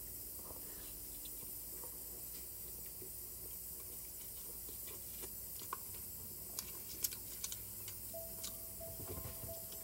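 Faint chewing and mouth sounds of a man eating a beef burrito over a steady background hiss, with a few small clicks in the second half.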